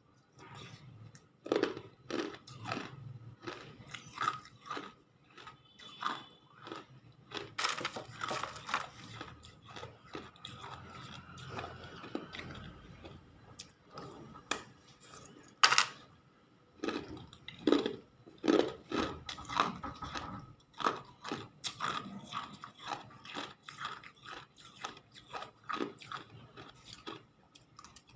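Hard ice being bitten and chewed, with irregular sharp crunches and crackles coming in quick clusters, one crunch in the middle louder than the rest.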